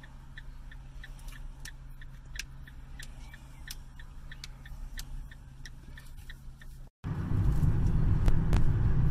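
Car's turn-signal indicator ticking evenly, about three clicks a second, over a low engine hum inside the cabin. About seven seconds in the sound drops out for an instant and gives way to much louder engine and road noise of the car on the move.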